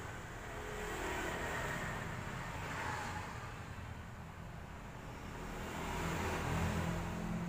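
Steady low background rumble, like distant road traffic, that swells and fades a few times.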